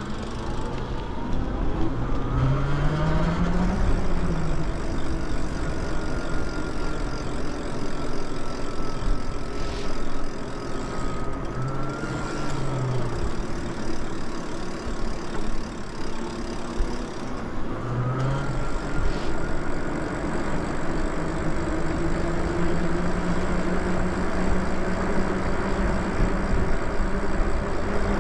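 Electric bike motor whining while riding, its pitch rising as the bike speeds up a few seconds in and again past the middle. Steady wind rush on the microphone and tyre noise on the path run under it.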